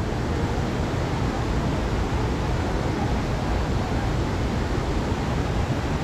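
Steady rushing noise with a rumbling low end, holding at an even level without any break.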